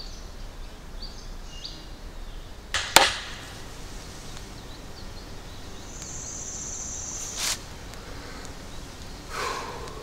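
Two quick hammer blows on a scythe blade laid on a small peening anvil, the second one sharp and ringing: peening the scythe's edge. A thin high steady sound follows for about a second and a half.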